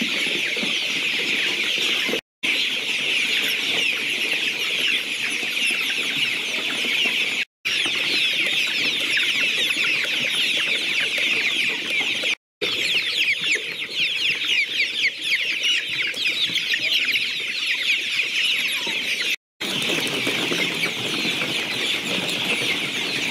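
A large flock of young chickens peeping: many high, short, falling chirps overlapping in a continuous chorus. The chorus is broken by four brief silences.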